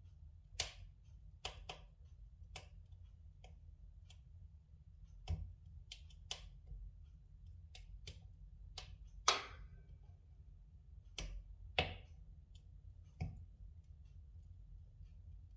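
Spruce logs burning in a fireplace, crackling with irregular sharp pops of varied loudness, the loudest about nine seconds in, over a faint low rumble.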